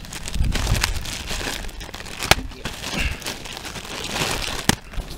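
Crinkling and rustling of the oil-filter kit's paper and packaging being handled close to the microphone, with a few sharp clicks.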